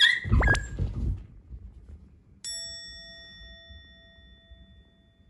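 Scuffle and a heavy thump as a dog is shoved off a sofa onto the floor, with a brief squeak. About two and a half seconds in, a single bell-like chime sound effect rings and slowly fades.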